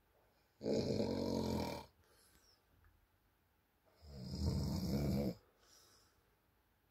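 Elderly woman snoring in her sleep: two long snores, each about a second and a half, a few seconds apart.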